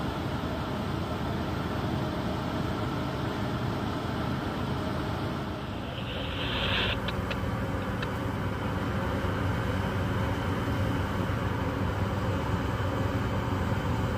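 Steady low drone of ship engines running during harbour manoeuvring, with a brief hiss about six seconds in.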